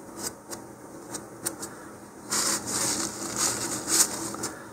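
Crumpled paper tissue rustling as glue is wiped off the fingers, starting a little over two seconds in, after a few light clicks of handling.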